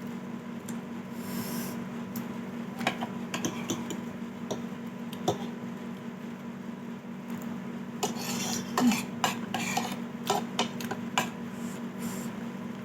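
A metal spoon clinking and scraping against a soup bowl while eating: scattered clicks, coming thicker about two-thirds of the way through, over a steady low hum.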